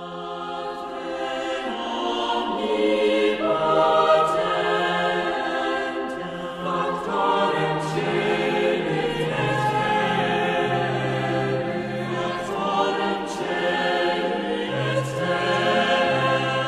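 Background music: a choir singing slow sacred choral music in long held notes, fading in at the start.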